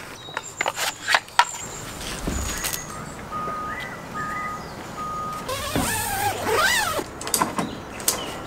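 Tent poles clicking and knocking as a Poler two-person dome tent is taken down. A few short, evenly spaced electronic beeps sound in the middle.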